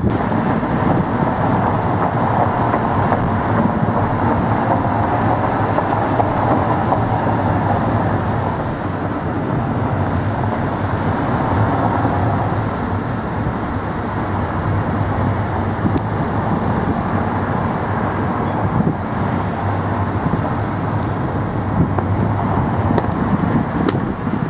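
Steady running noise of a motor vehicle, a low hum under a broad rushing sound, with a few faint ticks near the end.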